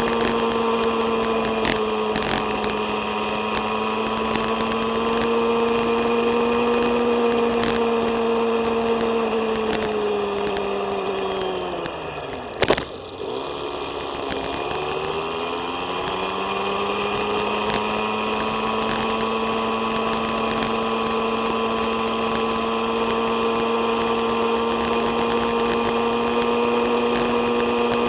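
Motorbike engine running at steady road speed; about halfway through its pitch falls as it slows down, there is a single sharp click, and then the pitch climbs back as it speeds up again.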